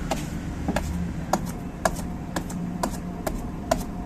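Gurgel front wheel turning on a noisy new Timken wheel bearing, giving sharp metallic clicks about twice a second over a low steady hum. The bearing has already needed its play readjusted twice and is due for replacement.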